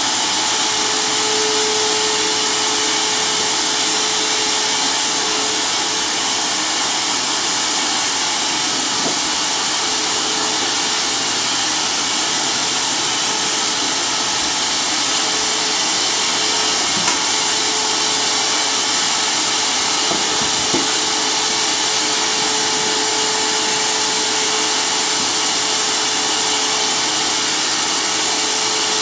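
Hyper Tough mini circular saw motor running steadily, with an even whine and no change in speed. Two short clicks come a few seconds apart, past the middle.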